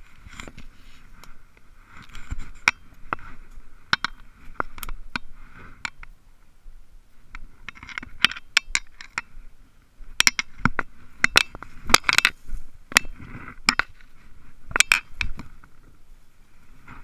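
Spinning rod and reel handled close to the microphone during a cast and retrieve: irregular sharp clicks and scrapes, coming thicker and louder in the second half.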